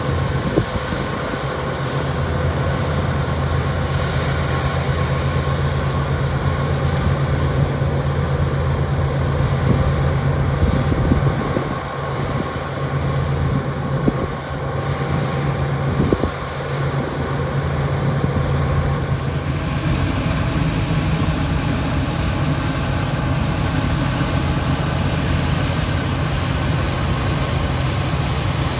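Farm machinery's engine running steadily, a continuous low hum with mechanical noise over it. About two-thirds of the way through, the higher hiss drops and changes.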